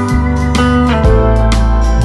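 Background music with a steady beat and held melodic notes over a bass line.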